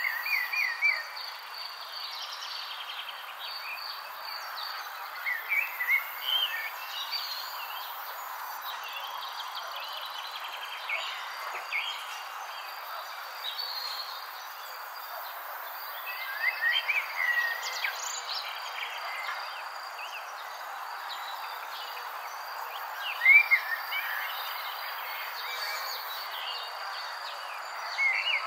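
Short bird chirps in clusters every few seconds over a steady high insect drone and a hiss of background noise.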